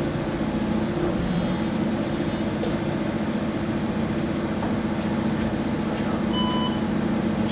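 Mercedes-Benz Conecto NGT city bus standing with its CNG engine running and a loud, steady fan noise over a low hum. Two short runs of high electronic beeps about a second in, and a single short beep near the end.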